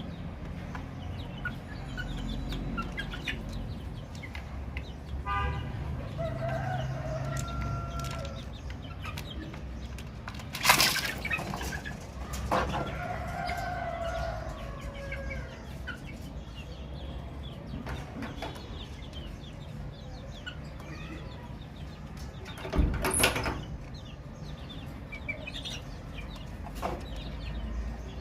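Chickens calling: chicks peeping and a hen clucking, with short scattered calls, a quick run of pulsed notes and a couple of longer, lower calls over a steady low rumble. Two brief loud noises stand out, about 11 and 23 seconds in.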